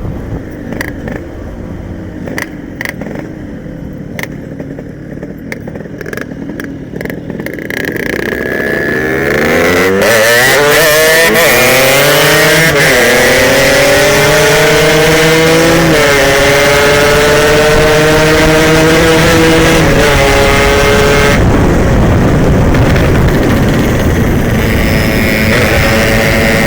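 Yamaha RX-King single-cylinder two-stroke motorcycle engine running at low revs, then from about eight seconds in accelerating hard through the gears, its pitch climbing and dipping briefly at each of three upshifts. Near the end it holds high revs under a loud steady rush of noise.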